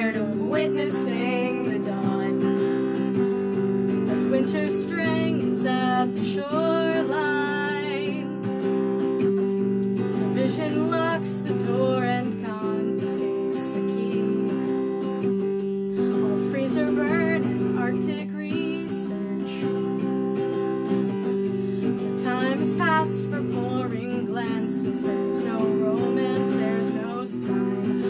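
Strummed electric guitar chords with women's voices singing a slow song in phrases over it.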